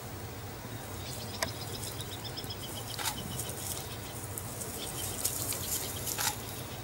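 A rapid trill of high chirps, heard twice, over a low steady hum, with a few sharp clicks between.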